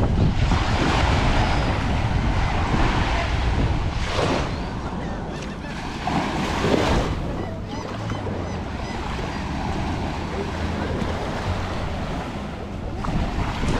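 Waves washing onto a beach, with wind rumbling on the microphone.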